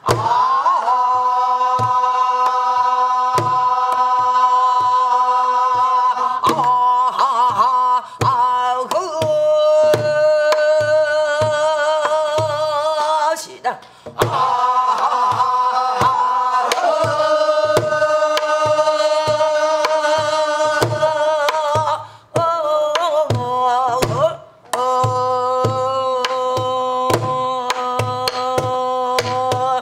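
A woman singing pansori in long, drawn-out held notes, keeping the rhythm herself with steady strokes on a buk barrel drum. The held notes break for a breath a few times.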